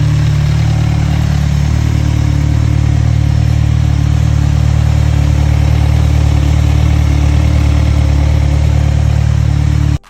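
Kawasaki Z1000's inline-four engine running at steady revs through an SC Project aftermarket exhaust, a deep even drone that holds one pitch. It cuts off abruptly near the end.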